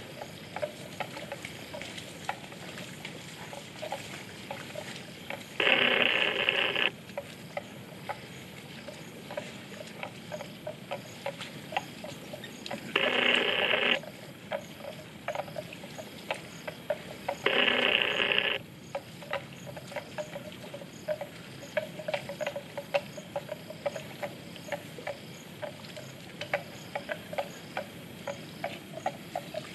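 Outdoor ambience of a dense patter of small clicks and ticks, broken three times by a loud, steady pitched buzz lasting about a second that starts and stops abruptly.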